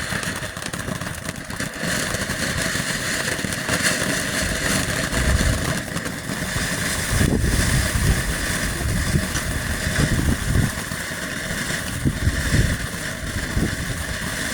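Phantom Oil Lamp fireworks fountain burning, spraying sparks with a steady hissing rush and a few louder low surges partway through.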